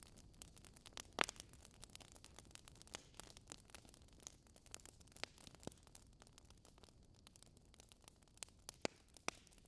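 Wood fire crackling in a fireplace: irregular sharp pops and snaps from burning logs over a soft hiss, the loudest pop about a second in.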